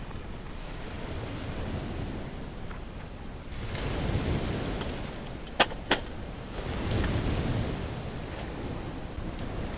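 Outdoor wind rushing over the microphone, swelling in two gusts, with two sharp clicks close together about halfway through.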